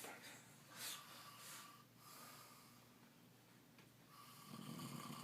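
A sleeping man snoring faintly, with snorting breaths: a short one about a second in and a longer one near the end.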